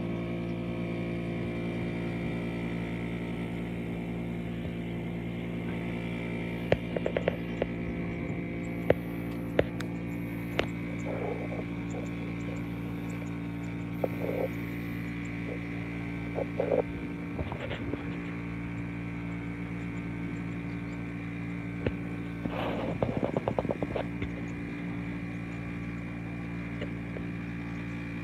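Steady turbine drone of PZL W-3 Sokol helicopters, an even hum with several fixed pitches, with a few brief sharp clicks and chirps scattered through.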